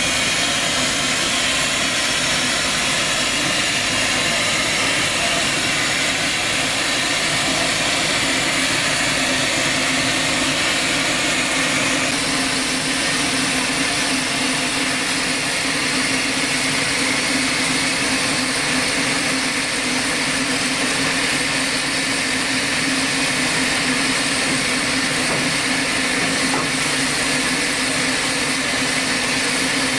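Small steam tank locomotive standing with steam up, hissing steadily and evenly, with a low steady hum beneath.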